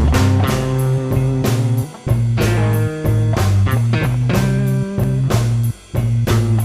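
Blues-rock music with electric guitar, bass and drums keeping a steady beat, briefly breaking off twice.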